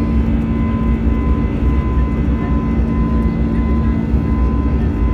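Jet airliner's engines heard from inside the cabin during the climb after takeoff: a loud, steady rumble with a held whine over it.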